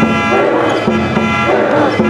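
A cheering-section band playing sustained, steady notes while a crowd of voices chants along in short repeated phrases.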